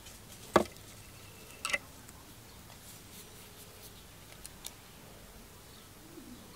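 A few sharp clicks from a fishing rig being handled: one about half a second in, a quick double click a second later, and two small ticks around four and a half seconds, over a faint hiss.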